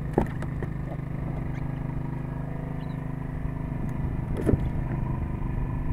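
A fishing boat's engine running steadily, with a couple of sharp knocks as hairtail fish are handled in a plastic fish box: one just after the start and another about four and a half seconds in.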